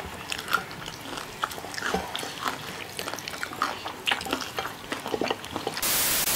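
Close-miked mouth sounds of biting and chewing sauce-glazed fried chicken: irregular wet smacks and small crunchy clicks. Near the end a burst of loud TV-static hiss cuts in over everything.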